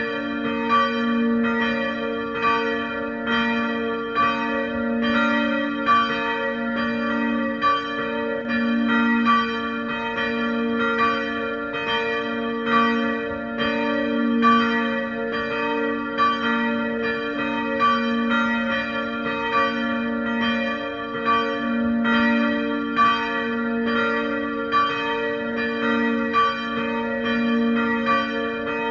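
Two swinging church bells ringing together, their clappers striking over and over in an overlapping, uneven pattern over the bells' long ringing tones.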